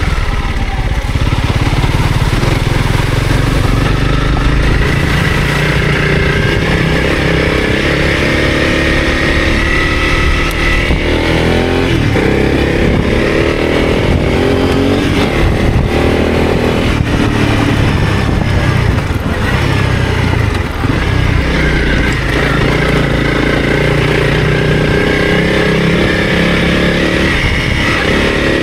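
Motorcycle engine running under way, over a steady low rush. The engine note rises and falls a few times around the middle.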